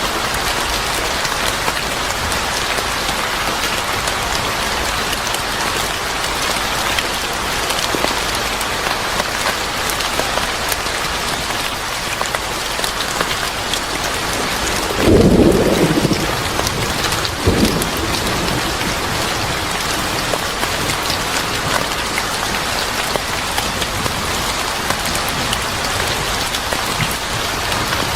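Steady rain falling, with a clap of thunder about halfway through and a shorter second crack of thunder a couple of seconds later.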